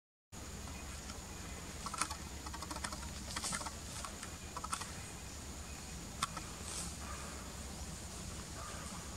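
Outdoor forest ambience: a steady high, thin hum under scattered short clicks and chirps, busiest about two to four seconds in.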